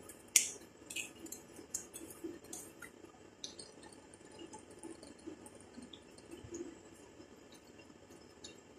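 Plastic screw cap twisted off a carton of liquid cream, with a sharp click near the start and a few lighter clicks after, then cream pouring faintly from the carton into a mixing bowl with soft drips and glugs.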